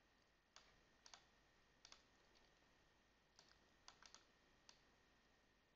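Faint computer mouse clicks, about eight of them, some in quick pairs, over near silence.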